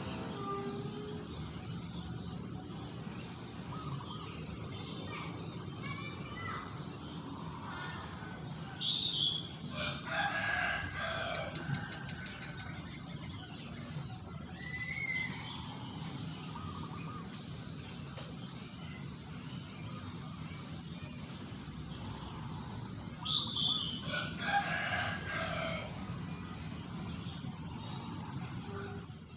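A rooster crows twice, one long call about nine seconds in and another about twenty-three seconds in. Under them are the short high chirps of small birds repeating every second or so and a steady low background hum.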